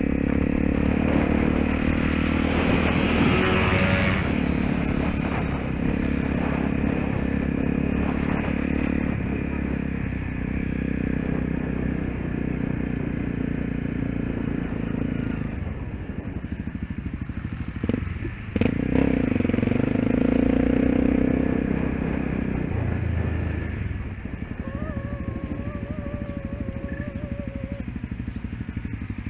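Dirt bike engine running as the bike is ridden, heard from the rider's seat with wind noise over it. The engine note drops out briefly about two-thirds of the way through, picks up again, then settles lower and quieter near the end.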